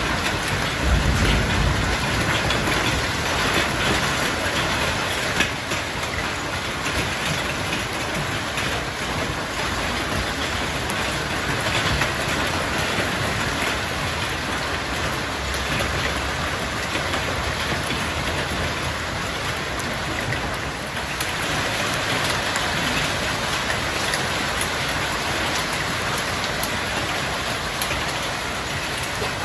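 Hail and rain falling steadily, a dense patter of countless small impacts.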